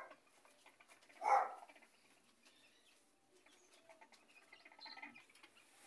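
Bantam chickens calling: one short, loud call about a second and a half in, then faint scattered clucks and chirps.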